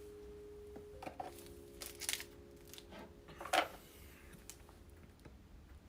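Faint rustling and scattered clicks of trading cards and their packaging being handled, the sharpest rustle about three and a half seconds in, over a low steady hum.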